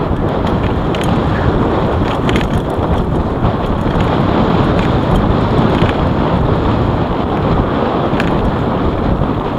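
Wind rushing over the microphone of a camera on a moving mountain bike, mixed with the rumble of tyres rolling over a dirt forest trail. A few sharp clicks and rattles come about a second in, around two and a half seconds and near the end.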